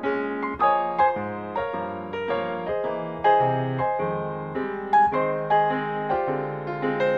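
Background piano music: a gentle melody of single struck notes over chords, each note fading after it is played.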